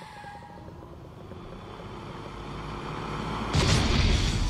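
A heavy tow truck's engine grows steadily louder, then a loud crash about three and a half seconds in as the truck smashes through a concrete bridge railing.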